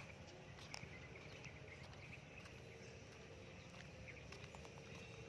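Near silence: faint outdoor background with a low steady hum and a few faint scattered clicks.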